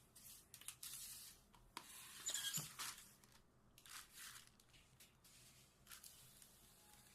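Faint rustling, crinkling and tearing of thin plastic wrapping during a phone unboxing, in several short bursts, loudest about two to three seconds in.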